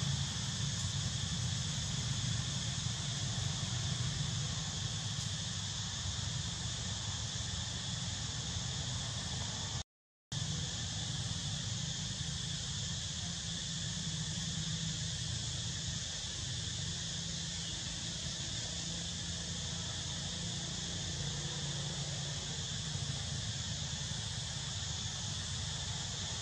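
Steady forest ambience: an even high hiss like insects droning, over a low rumble, with no monkey calls standing out. The sound cuts out completely for a split second about ten seconds in.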